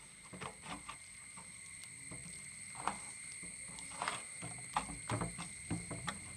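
A hand squelching through thick egg-and-flour batter in a steel bowl, with irregular wet squishes.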